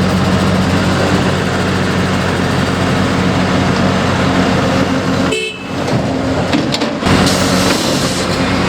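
Heavy construction machinery's diesel engines running steadily at the work site, with a brief high tone about five seconds in.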